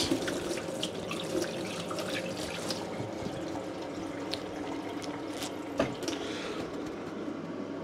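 Kitchen tap running while hands are washed under it: a steady rush of water with a few light clicks and one sharper knock.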